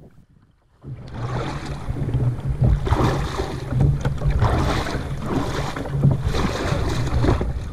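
Loud outdoor rushing noise with heavy wind buffeting on the microphone, starting about a second in and swelling roughly once a second.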